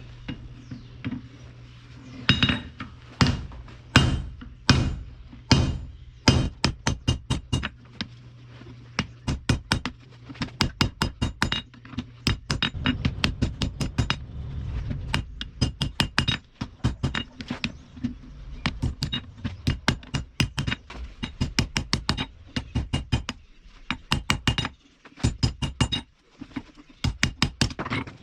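Hand hammer striking steel on an anvil, each blow ringing: a few heavy spaced blows, then fast runs of lighter strikes. A steady low hum runs under the blows and fades out about halfway through.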